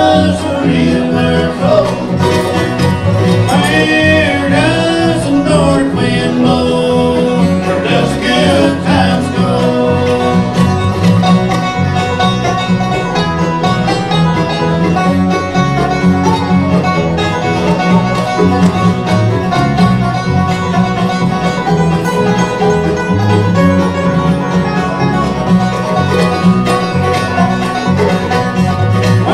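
Bluegrass band playing an instrumental break without singing, with banjo and guitar to the fore.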